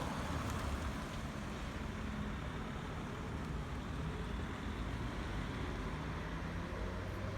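Mercedes-Benz SLK 200 Kompressor's supercharged four-cylinder engine idling with a steady low rumble.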